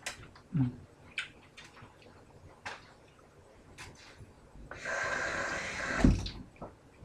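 Kitchen sink tap running briefly near the end, a steady hiss of water lasting about a second and a half that ends with a heavy low thump. Scattered light clicks and knocks come before it.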